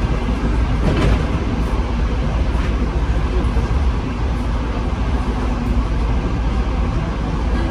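Passenger train running along the track, heard inside the carriage beside an open window: a steady rumble of wheels on rails mixed with wind rushing in, with a sharper knock about a second in.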